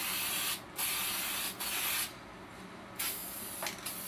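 Aerosol can of Rust-Oleum flat black enamel spray paint hissing in three spray bursts, the middle one longest at over a second, then a short puff near the end.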